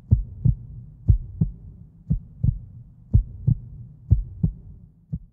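Heartbeat sound effect: paired lub-dub thumps about once a second over a low hum, the last beat weaker as it fades near the end.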